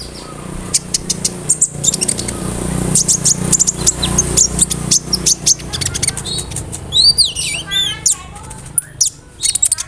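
Konin (kolibri ninja sunbird) singing a rapid stream of high, sharp chips and short notes, with a run of falling, sweeping whistles about seven seconds in. A low steady hum runs underneath.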